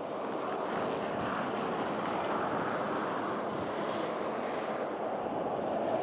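Steady rushing hiss of road traffic on a highway, growing slightly louder toward the end as a vehicle approaches.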